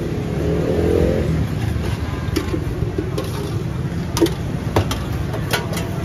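Steady low rumble of street traffic, with a motorcycle engine revving in the first second. Several sharp clinks of the cook's utensils and oil tin at the griddle stand out over it in the second half.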